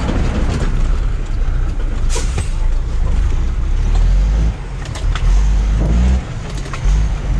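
Diesel engine of an International Paystar 5000 tractor truck, a Cummins ISX15, running as the rig moves slowly, heard from inside the cab with a few rattles and clicks. Near the end the engine note steps up and down a few times.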